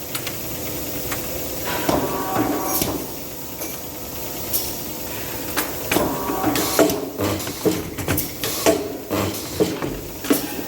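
Metalworking factory machinery at work: a steady hiss with metallic clanks and knocks. The knocks come in quick succession, about two a second, in the second half.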